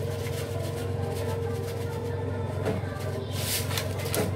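A small plastic bag of sesame seeds crinkling in the hand as the seeds are shaken out over a dish, with a short rustle about three and a half seconds in. Under it runs a steady low hum.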